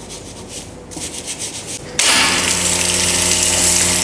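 A stiff wheel brush scrubs a foam-covered alloy wheel in quick strokes. About two seconds in, a pressure-washer jet starts suddenly and rinses the iron-remover foam off the wheel and brake disc: a loud, steady rush of spray over a steady machine hum.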